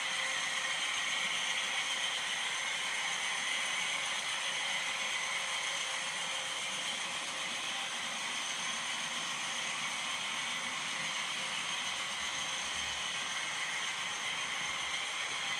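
HO scale model freight train of Walthers Norfolk Southern 53-foot gondolas rolling along the layout track: a steady rolling noise of small metal wheels on the rails.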